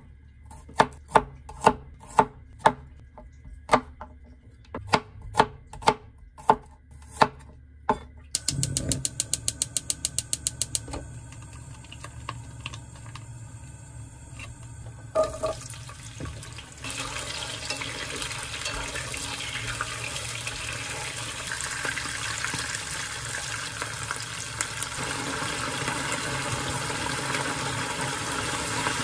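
Chef's knife chopping garlic on a wooden cutting board, sharp chops one or two a second, followed by a quick run of ticks from the gas stove's igniter. After a clank, garlic in olive oil starts sizzling in a frying pan and the sizzle grows steadily louder.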